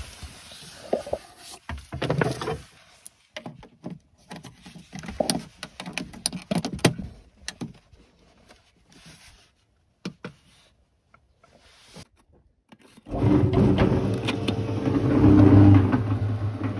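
Scattered clicks and knocks as a plug is pushed into a portable power station's socket, then, late on, an electric cement mixer starts and runs with a steady, loud motor hum as its drum turns.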